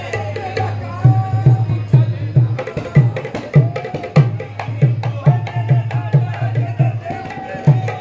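Qawwali music: a voice singing over tabla-like hand drumming, about three strokes a second, which comes in louder about a second in, with a steady low drone beneath.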